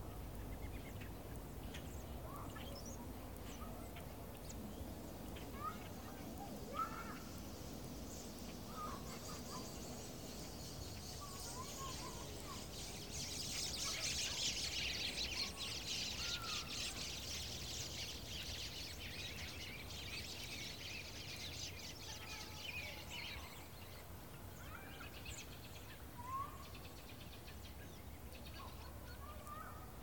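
A large flock of birds flies overhead, with scattered single calls throughout. About twelve seconds in, a dense, high chattering of many birds builds up, peaks a few seconds later, and fades out after about twenty-three seconds.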